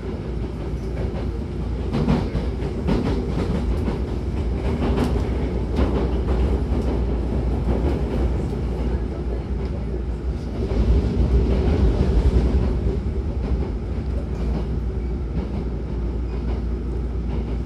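Hankyu 9000-series commuter train running, heard from inside the car: a steady low rumble with occasional sharp wheel clicks over the rails. It gets louder for a couple of seconds about eleven seconds in.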